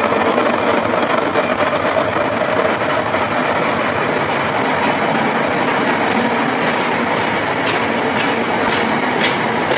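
Class 70 diesel locomotive and its train of hopper wagons running past at speed, a loud steady rumble of engine and wheels on rail. In the last couple of seconds the wagon wheels clatter over rail joints, about two clicks a second.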